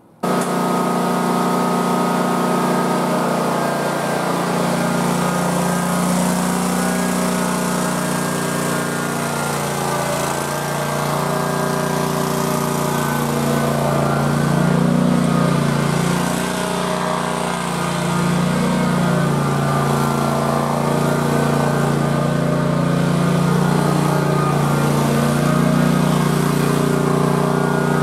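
Cub Cadet RZT zero-turn mower's Kawasaki engine running steadily, its pitch rising and falling a little as the machine is driven.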